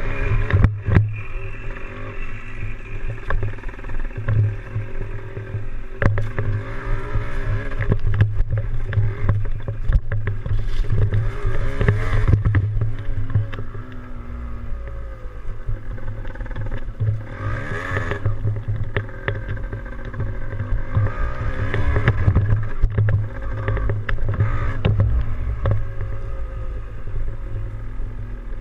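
Yamaha DT175 two-stroke single-cylinder dirt bike engine running on the move, its pitch rising and falling several times as the throttle is opened and closed, over a deep steady rumble with scattered knocks and clicks.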